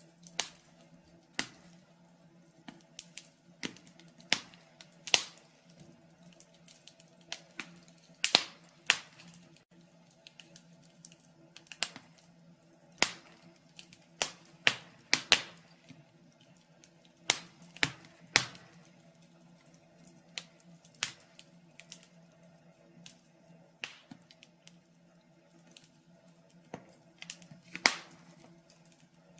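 Wood fire in a fireplace crackling: irregular sharp pops and snaps, sometimes several close together, over a faint steady hum.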